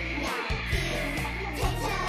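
Background music with a steady pulsing bass and a melody, a high note held through the middle.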